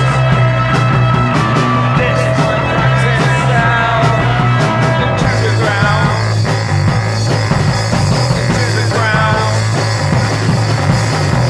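Punk/post-punk rock band playing: a steady low bass line under wavering guitar and synth lines with drums, the texture shifting about five seconds in.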